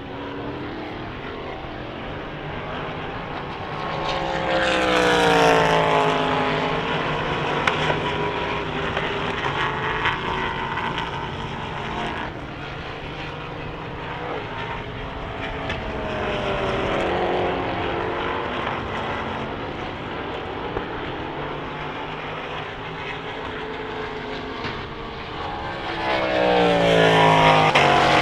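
Endurance race cars going past at speed, each engine's pitch dropping as it passes. The loudest passes come about five seconds in and again near the end, with a quieter one in the middle.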